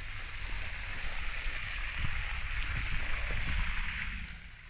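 Steady rushing hiss of a waterfall pouring into a pool, with a low rumble underneath that eases off near the end.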